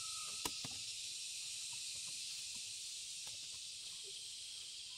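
Steady high-pitched hiss of an insect chorus, with two light clicks about half a second in.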